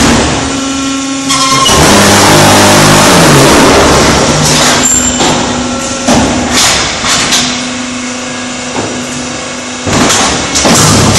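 Concrete block making machine (VPS 2000 GT/A) running on a test cycle: a steady low hum under loud machine noise that swells and falls, loudest about two to four seconds in and again near the end.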